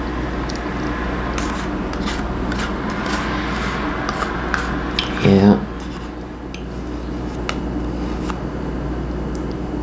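A metal spoon clicking and scraping against a dish while someone eats yogurt, light scattered clinks over a steady background hum. About five seconds in, a brief vocal sound from the eater is the loudest moment.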